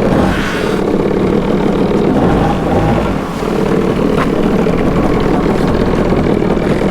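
Sea-Doo personal watercraft engine running steadily at idle, dipping briefly about three seconds in.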